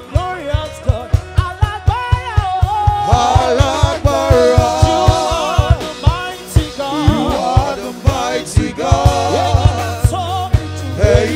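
Live gospel praise music: voices singing over a fast, steady drum beat of about four hits a second, with bass.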